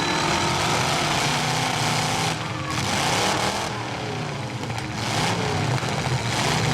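Several demolition derby trucks' engines revving hard together, loud and continuous, their pitch rising and falling as they accelerate and back off.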